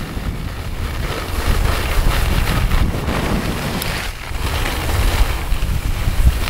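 Wind buffeting the camera's microphone as a skier glides down a groomed slope, with the skis hissing over the snow. It eases briefly about four seconds in.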